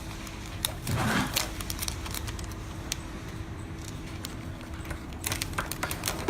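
Scattered plastic clicks and knocks from handling an automatic tape dispenser as its cover is fitted back on, with a duller thump about a second in and a quick run of clicks near the end, over a faint steady hum.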